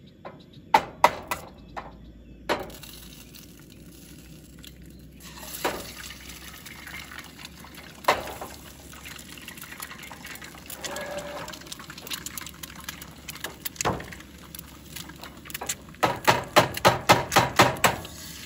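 Butter sizzling in a frying pan on a Coleman propane camp stove, a steady hiss that sets in a couple of seconds in. It is broken by two single sharp knocks as eggs are cracked on the pan. Near the end comes a quick run of taps against the pan as the eggs are scrambled.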